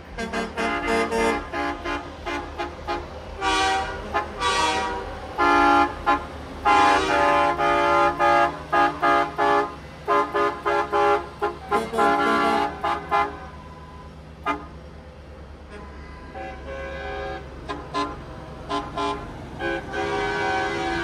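Semi-truck air horns blowing in a long series of short and longer blasts, several pitches sounding together like a chord. The blasts come thick and fast for the first two-thirds and grow sparser near the end, over a low steady rumble.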